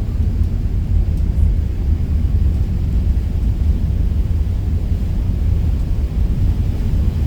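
Steady low rumble of a Mersey ferry's engines running as the boat pulls away from the terminal.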